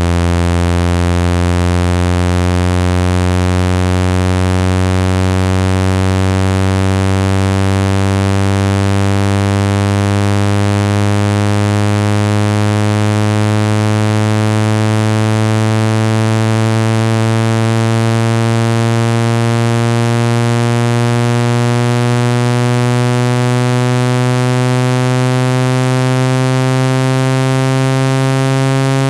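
Synthetic speaker-cleaning tone: a loud, low buzz rich in overtones, its pitch slowly rising. It is played to push water and dust out of a phone speaker grille.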